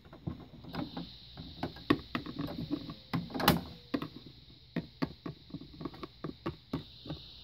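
Small plastic toys being handled on a tabletop: irregular light clicks and knocks as a toy figure is taken from a plastic toy house and set down, with one louder knock about three and a half seconds in.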